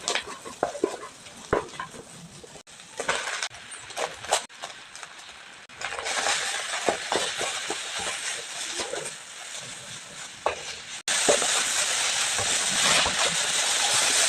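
Chicken noodles frying in a hot pan: a steady sizzle with a metal spatula knocking and clinking against the pan as the noodles are stirred. The sizzle changes abruptly several times and is loudest over the last three seconds.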